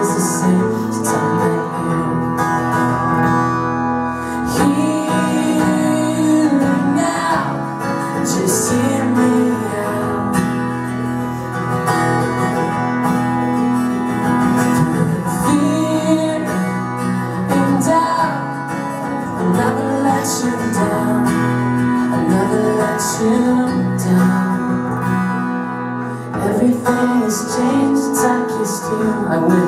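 Live acoustic duo: two acoustic guitars strummed together with a male voice singing the melody over them.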